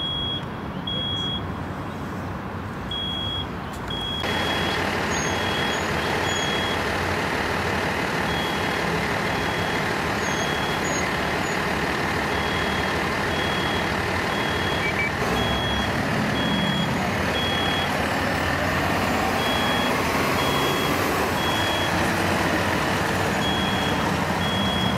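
A high-pitched electronic beep pulsing on and off about once a second, over a steady rumble of engines and street noise that grows louder about four seconds in.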